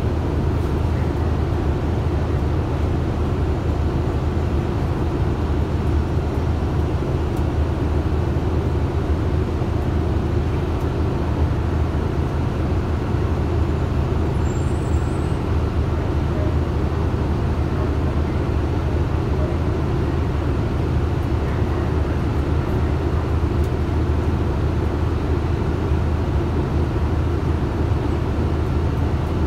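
City bus heard from inside its cabin: a steady low drone of engine and running noise, even in loudness throughout.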